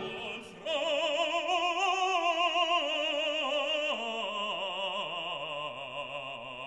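Background music: an operatic voice singing long held notes with a wide vibrato over a classical accompaniment.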